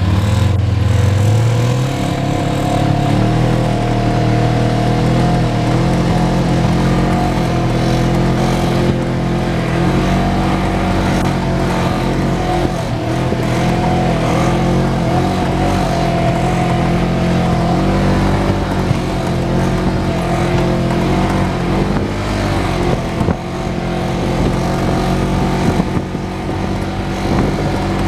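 Side-by-side UTV engine running steadily as the vehicle drives along a dirt trail, heard from the driver's seat.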